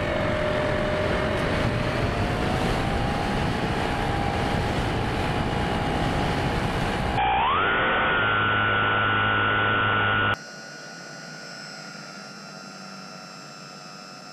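Bixler 3 foam RC plane's electric motor and propeller whining steadily in flight, with wind rush, heard close up from on board. About seven seconds in the whine jumps higher in pitch, and about ten seconds in it turns much fainter, heard from the ground.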